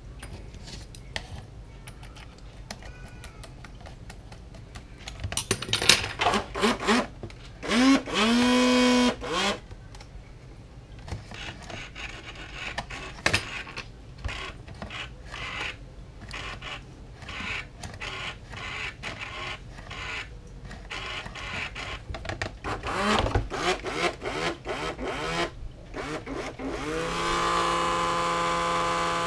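A small electric motor spinning up and down in short bursts, then running steadily near the end, among many clicks and knocks of parts being handled.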